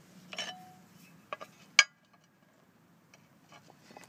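A few sharp metallic clinks and clicks: one about half a second in, two quick ones, then a louder clink about two seconds in that rings briefly.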